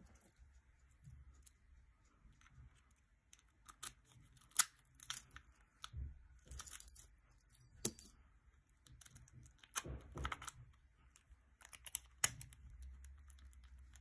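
Scattered small metallic clicks and rattles from a cheap padlock worked by hand, its shackle snapping open and shut, with a brief high jingle of small metal parts partway through.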